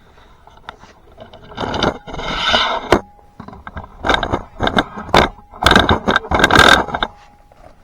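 Handling noise: several bursts of scraping and rubbing, with a few sharp knocks in between, as objects are taken out and moved about.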